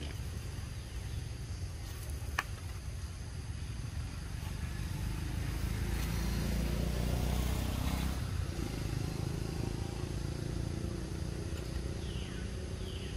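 Steady low outdoor rumble that grows louder for a few seconds in the middle, then eases back. A sharp click comes a couple of seconds in, and two short falling squeaks come near the end.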